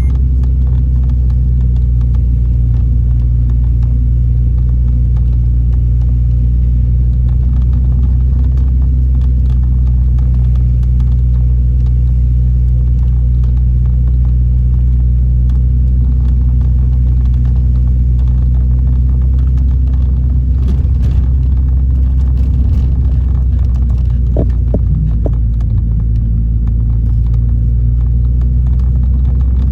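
A car's engine and road noise heard from inside the cabin while driving: a steady low rumble, with a few brief higher tones about 24 seconds in.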